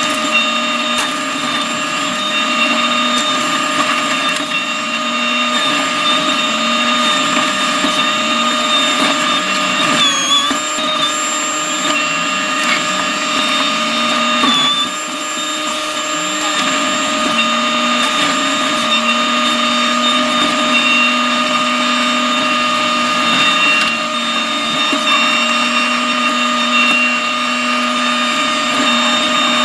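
New Holland C327 skid steer running a McLaren RM60 forestry mulching head: a loud, steady high whine over the machine's running, dipping briefly in pitch twice, about ten and fifteen seconds in.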